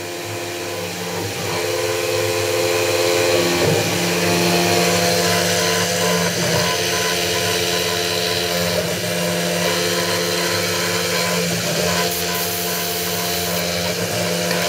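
Grizzly X2 mini mill, converted to CNC, running its spindle steadily with an end mill cutting a 6061 aluminum plate. A machine whine of several steady tones sits over a hiss.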